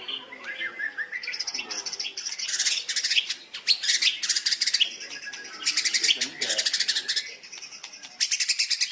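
White-rumped shama (murai batu) singing, its song broken by four bursts of fast, rattling chatter that imitate the squabbling of fighting sparrows.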